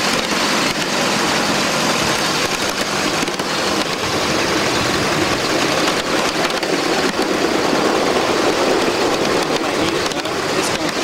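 Live-steam Shay locomotive running along the track: a steady mechanical running noise with scattered clicks.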